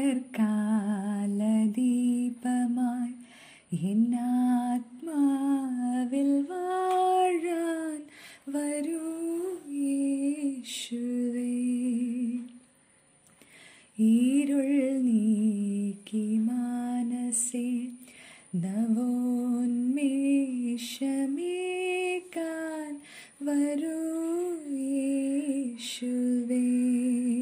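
A woman singing a slow melody wordlessly and unaccompanied, in phrases of a few seconds with held and gliding notes and short breaths between them.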